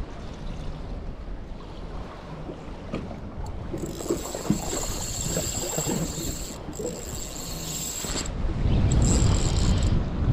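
Wind buffeting the microphone and water washing around a small boat at sea. A high hiss rises in the middle few seconds, and the low rumble of the wind grows louder about eight seconds in.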